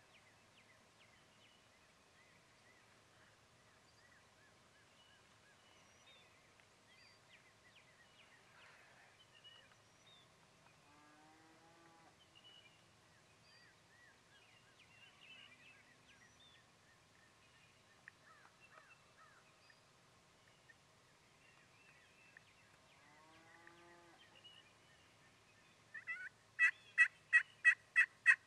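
Turkey calls with small birds chirping faintly behind them: two faint, distant falling gobbles, then near the end a loud, close run of about seven quick yelps.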